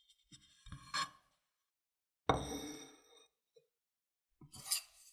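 Tableware handled on a wooden tabletop: a light clatter, then a louder knock about two seconds in as a ceramic plate is set down, and a short clink near the end.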